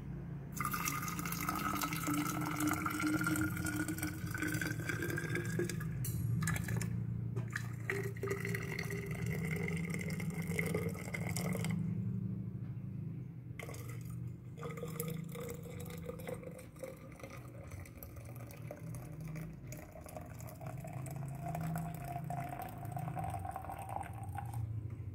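Hot water poured from a stainless steel kettle into a vacuum flask, its tone rising in pitch as the flask fills, broken by a few short pauses in the pour. A steady low hum runs underneath.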